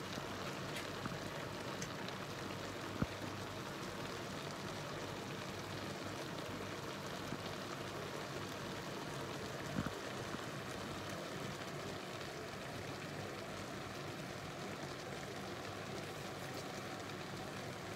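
A pot of nikujaga simmering on the stove, a steady bubbling crackle, with two light clicks of a fork against the pot.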